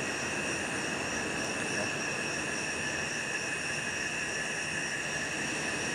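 Steady night chorus of insects: several shrill high tones held without a break over a constant hiss.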